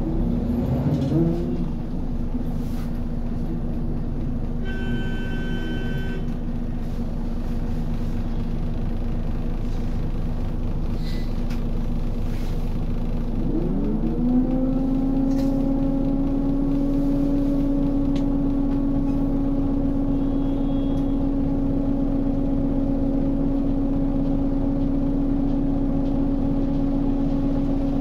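Scania L94UB city bus's five-cylinder diesel running low and steady, with a short electronic signal tone about five seconds in. About halfway through, the engine's pitch rises quickly, then holds a steady, slightly louder drone.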